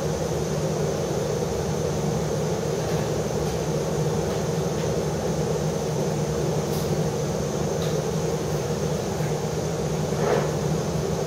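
Steady mechanical hum with a thin high whine above it, unchanging throughout, and a short brushing knock about ten seconds in.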